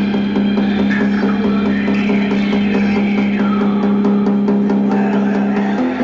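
Electronic dance music played live: a held low synth tone under fast, even hi-hat ticks and synth lines that slide in pitch, with no deep kick drum. The held tone changes just before the end.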